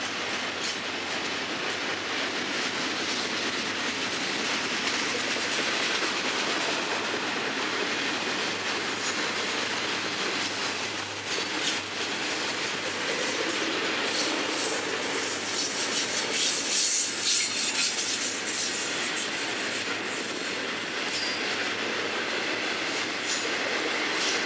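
Florida East Coast Railway freight cars rolling past on the rails, wheels clicking over the rail joints, with a stretch of high-pitched wheel squeal past the middle.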